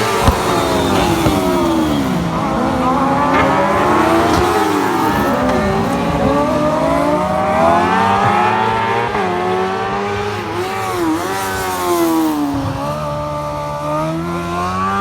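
Several racing sidecar outfits' engines passing at speed, revving hard and shifting, their pitches rising and falling over one another as they go by.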